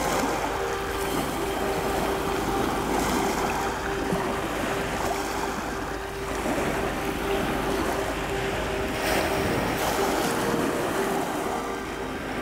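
Sea waves breaking and washing on a pebble beach in a steady surf wash, with a faint steady hum underneath.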